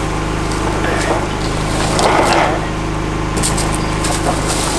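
An engine runs steadily throughout, with a brief scraping noise about two seconds in and a few sharp knocks near the end.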